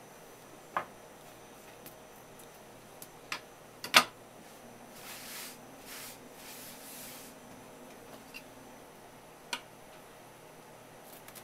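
A few sharp taps of a kitchen knife and fish fillets on a wooden cutting board, the loudest about four seconds in. Between them, a soft rubbing swish for about two seconds as a cloth wipes the board.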